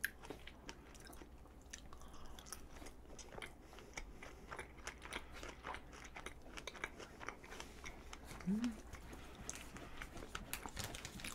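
Close-miked chewing of a strawberry glutinous rice cake (chapssal-tteok): faint, soft, wet mouth clicks and smacks. A short rising hummed 'mm' comes about eight and a half seconds in.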